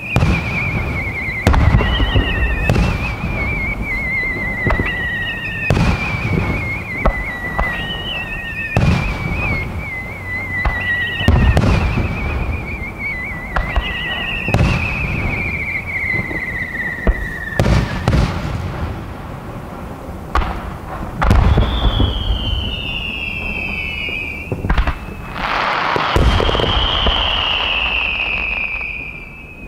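Aerial firework shells launching and bursting in quick succession, a boom every second or two. Over them, whistling effects glide down in pitch, one after another, each lasting two to three seconds; near the end a louder whistle sounds over a rushing hiss.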